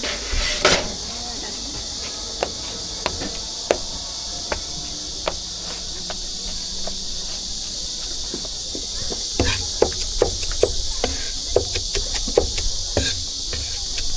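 Steady high-pitched insect drone, with scattered sharp knocks that turn into a quick run of knocks about two-thirds of the way in.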